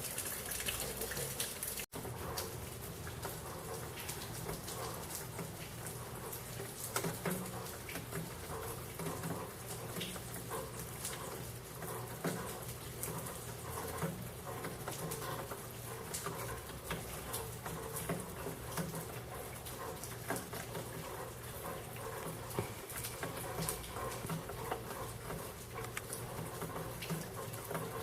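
Rain falling on leaves: a steady dense patter of many small drops, with a brief cut-out about two seconds in.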